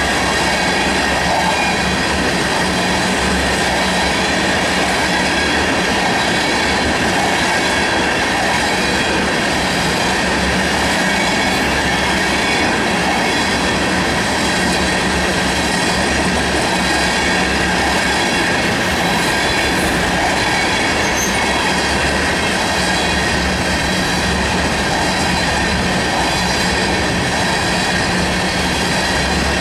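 Freight train of steel tank cars rolling past at steady speed: continuous steel wheel-on-rail noise with several steady high ringing tones over it.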